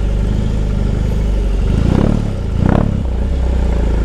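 BMW R18's big boxer twin running at low road speed, with two short throttle blips about two seconds in and again just before three seconds.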